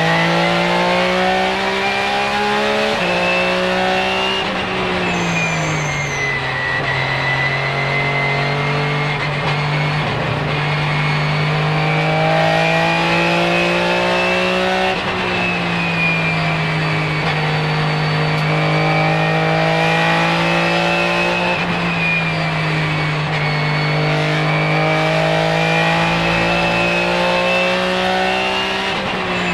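Porsche 996 GT3 RSR racing engine, a 3.6-litre flat-six, heard from inside the cockpit under hard running on track. The note climbs slowly through long pulls and steps or drops at gear changes, with a high whine that follows the engine speed.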